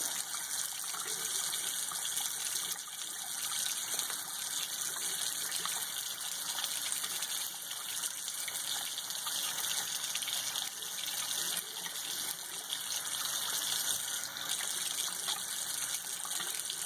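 Tap water running steadily into a sink while a bar of soap is worked into a lather in wet hands.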